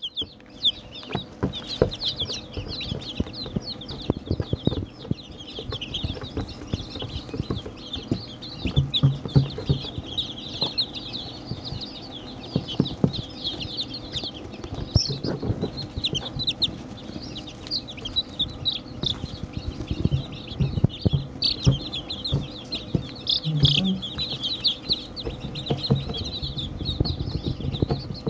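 A brood of day-old chicks peeping without pause, many high chirps overlapping, with frequent close knocks and rustles right at the microphone.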